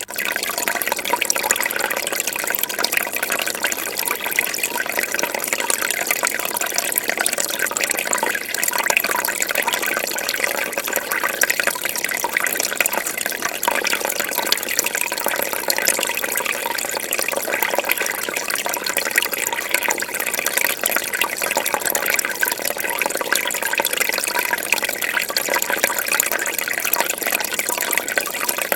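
Fish tank water bubbling steadily, a dense continuous stream of small bubbles and trickles.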